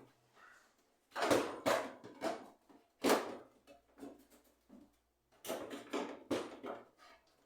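Household objects being handled: clattering knocks in three bunches, the first about a second in, another near three seconds, and a longer run of knocks around the sixth second.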